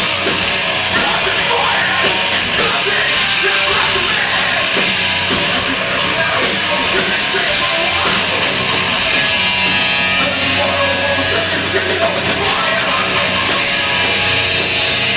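A heavy rock band playing loudly, with distorted electric guitars.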